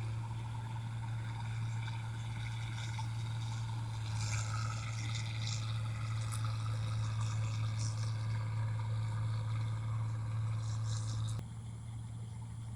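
Chinese-made Tokai 1545 rice machine running: a steady motor hum with scattered rattling and crackling on top. The sound drops suddenly near the end.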